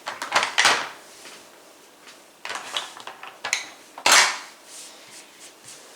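Small hard objects clattering and knocking as they are handled and set down, a run of sharp knocks with the loudest about four seconds in.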